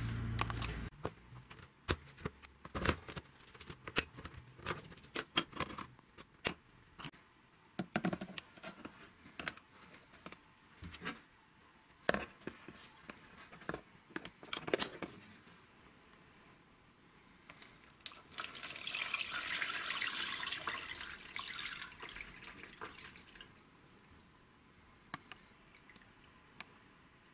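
Metal vise parts and wire being handled and set down in a plastic tub, a run of light clicks and knocks. Then water is poured into the tub for several seconds, a splashing hiss that fades off near the end.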